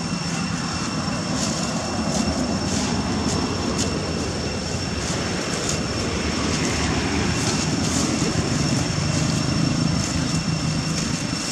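A steady low rumble, with a faint, steady high-pitched whine and light ticks over it.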